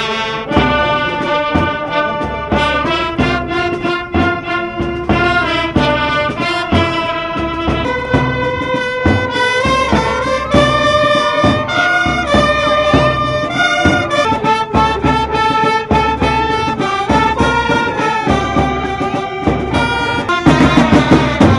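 Naval brass band playing a tune, with trumpets leading over tubas and a steady low beat. It gets louder near the end.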